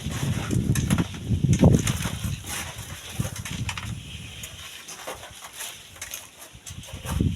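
Strong gusts of wind buffeting the microphone: an uneven low rumble that swells about one and a half seconds in and again near the end, with scattered light clicks.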